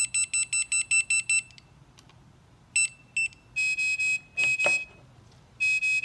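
Revel transport ventilator being switched on: a fast run of about eight high beeps in the first second and a half, then two short beeps and longer, steady alarm tones as its start-up alarms sound.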